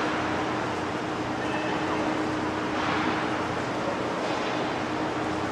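Steady outdoor stadium background noise with faint, indistinct distant voices and a low steady hum.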